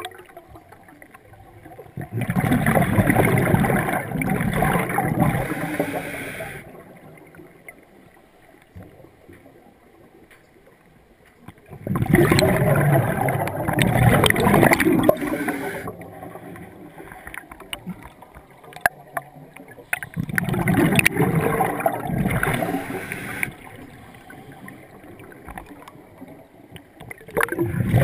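Scuba diver's regulator exhausting bubbles on each exhale: a bubbling, gurgling burst lasting about four seconds, repeating every eight to ten seconds, with quieter stretches for each inhale in between. Three full bursts, and a fourth starts near the end.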